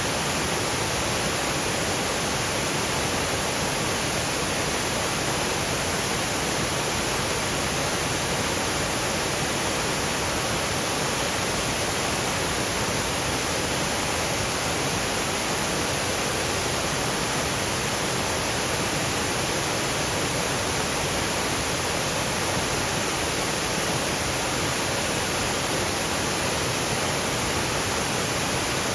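Waterfall rushing over rocky ledges, a steady, unbroken roar of falling water, with light rain falling through the trees.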